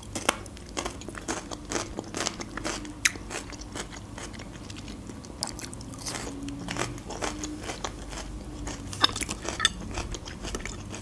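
Close-up crunchy chewing of raw red bell pepper: a bite, then many crisp, irregular crunches as it is chewed.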